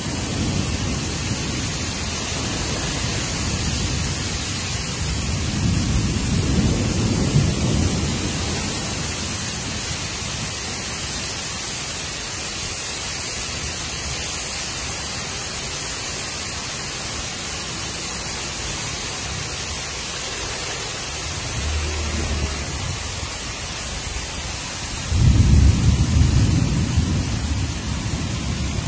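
Heavy monsoon downpour, a steady even hiss of rain, with low rumbles swelling a few seconds in and a louder one starting suddenly near the end.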